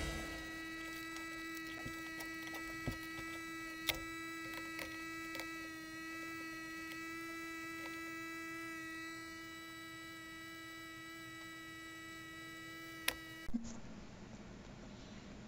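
Flashforge Finder 3 3D printer humming steadily with a high whine from its fans and electronics, with a few light taps as the printed TPU tire is handled on the build plate. The hum cuts off abruptly about 13 seconds in, leaving quieter room tone.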